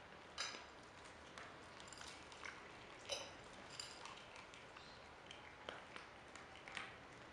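Capybara eating corn kernels from a bowl: faint, irregular sharp crunches and clicks, about ten of them, a few with a brief high ring.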